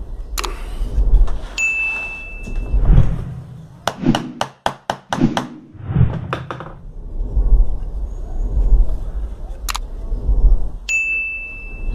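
Pine strips of a cross-lap joint being handled and fitted together in the hand over a steady low rumble. There is a quick run of about eight sharp clicks about four seconds in, and a short high ding twice, once near the start and once near the end.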